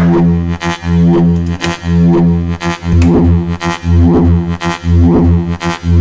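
Make Noise DPO oscillator drone whose wavefolder is swept by a MATHS "swirly bird" loop, two function generators triggering each other endlessly. The low steady tone pulses in brightness about twice a second. From about halfway through, a rising-and-falling sweep rides the pulses about once a second.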